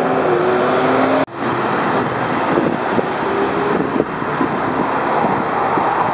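Sports car engine pulling away, its note holding steady. About a second in there is an abrupt cut, and after it a line of Ferraris and other sports cars drives slowly past in steady traffic noise.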